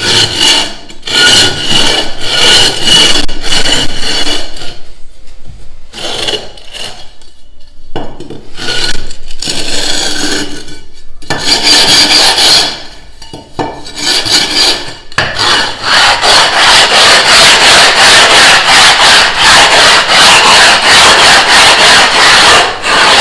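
Gypsum decorative stone tile rubbed back and forth on a concrete floor screed to grind down its lumps and uneven back: rasping, scraping strokes. Irregular at first, then from about two-thirds of the way in the strokes turn fast and even, about three a second.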